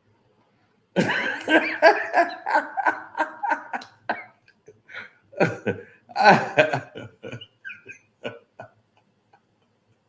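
A man laughing hard in rapid rhythmic bursts, breaking into coughs and wheezy squeaks toward the end.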